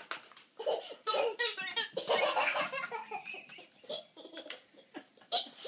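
Toddler laughing hard, a quick run of repeated laughs in the first half, then shorter giggles and breaths.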